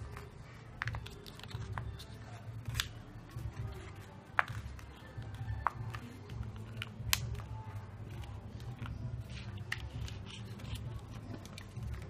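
Origami paper rustling and crackling as it is folded and its creases pressed, with a handful of crisp snaps, the sharpest about three, four and a half, five and a half and seven seconds in. Background music plays under it.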